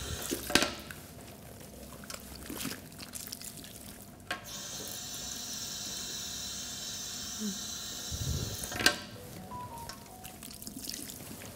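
Water from a salon shampoo-bowl hand shower running over hair and splashing into the basin as shampoo lather is rinsed out. A steady spray hiss runs for about four seconds in the middle, and a few sharp clicks come at the start, middle and near the end.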